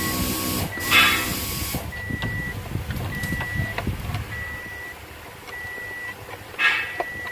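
An electronic beeper sounding one steady, fairly high tone, on and off about once a second, with two short bursts of noise about a second in and near the end.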